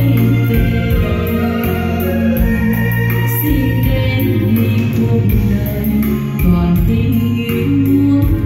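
A song with singing played through a pair of Pioneer CS-A700 loudspeakers driven by a Denon PMA-580D integrated amplifier, heard in the room.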